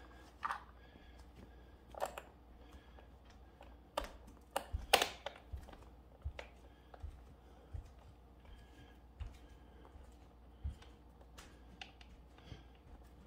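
Irregular clicks and knocks of gaming-chair parts and hardware being handled during assembly: plastic pieces snapping into place and screws being lined up. The loudest cluster of knocks comes about four to five seconds in.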